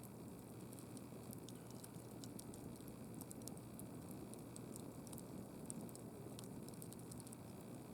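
Wood campfire crackling: scattered small pops and snaps over a low steady rumble.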